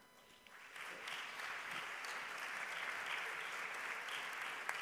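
Audience applause in a hall, rising out of a brief hush about a second in and then running on steadily, with a few louder single hand claps standing out near the end.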